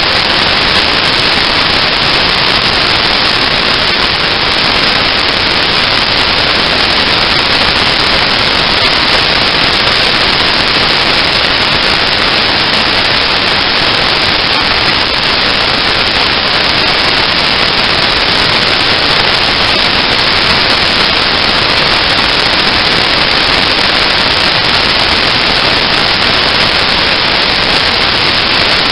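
Steady, loud static-like hiss from the onboard camera's recording, with no distinct engine note or other event standing out.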